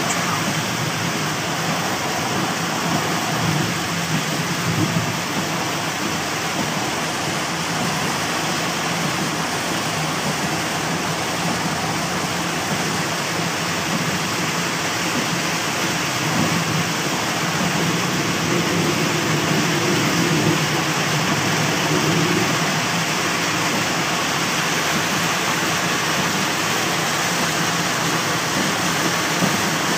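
Heavy rain pouring on a moving car, mixed with the hiss of tyres on a flooded road, heard from inside the cabin as a steady, unbroken wash of noise.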